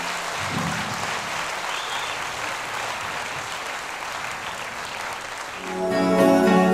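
Audience applauding. About five and a half seconds in, music comes in with held chords.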